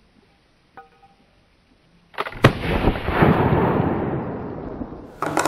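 A French 1777 flintlock cavalry pistol, a .69-calibre smoothbore loaded with black powder and shot, fired once a little over two seconds in. The sharp crack of the shot is followed by a long rolling echo that fades over about three seconds.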